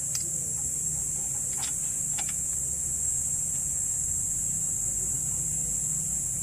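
Steady high-pitched drone of insects over a low hum, with a few faint clicks in the first couple of seconds as hands work at a disc brake caliper.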